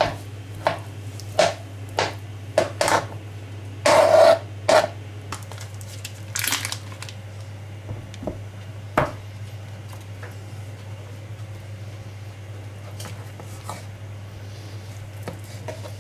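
Knife dicing avocado on a plastic cutting board: a run of sharp knocks in the first five seconds, a brief scrape at about six and a half seconds and one more knock near nine seconds, then only faint ticks. A low steady hum runs underneath.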